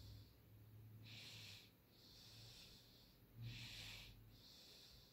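Faint, slow breathing of the person holding the phone, close to its microphone: two in-and-out breaths over a faint steady low hum.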